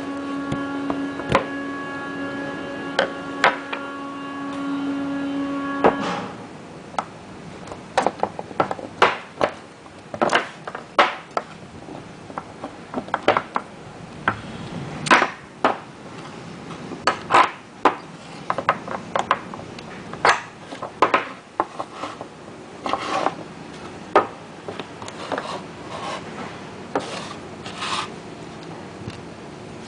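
A steady humming tone that cuts off suddenly about six seconds in, followed by irregular clicks, knocks and clinks as wet-clutch parts and tools are handled during disassembly.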